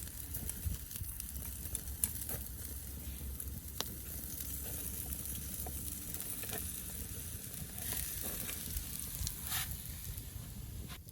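Ribs sizzling on a grate over a campfire: a steady hiss with a few scattered sharp pops and crackles from the burning wood.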